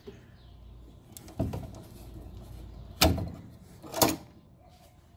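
Parts in the wire-feed compartment of a MIG welder knocking and clicking as they are handled by hand, likely the drive-roll tension arm and spool hub. There is a soft knock about a second and a half in, then two sharp loud clacks a second apart, at about three and four seconds.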